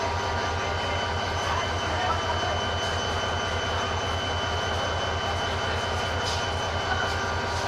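Diesel locomotive standing at idle with a steady, evenly pulsing low throb, under the chatter of a platform crowd.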